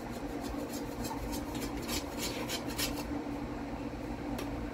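Distant freight train rolling past: a steady low rumble with a run of short, high clicks.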